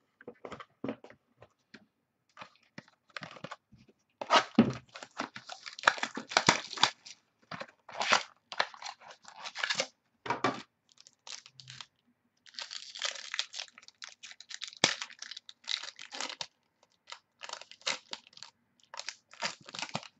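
A foil baseball-card pack being torn open and its wrapper crinkled by hand, in irregular crackling bouts with short pauses.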